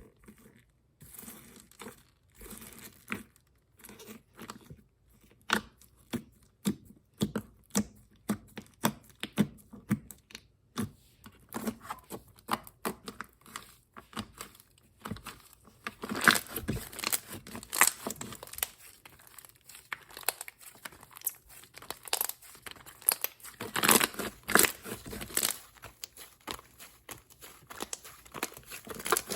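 Foam ball slime being squeezed and pressed by hand: the foam beads give rapid crunchy crackles and pops, scattered at first and coming thick and faster from about halfway through.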